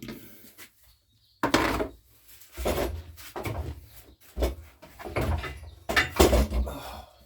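Plastic parts of a Makita EM2600 petrol strimmer being handled and fitted back together: irregular knocks, clicks and rattles starting about a second and a half in, as the air filter and its cover go back on.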